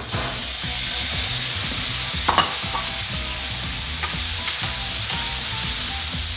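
Cherry tomatoes sizzling in hot olive oil and shrimp juice in a frying pan as they are tipped in and stirred with a wooden spoon: a steady frying hiss. One brief knock a little over two seconds in.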